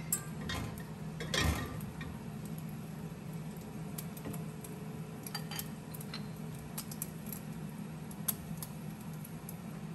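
Light clinks and taps of kitchen utensils and a stainless canister being handled beside a stove, with a short clatter about a second and a half in, over a steady low hum.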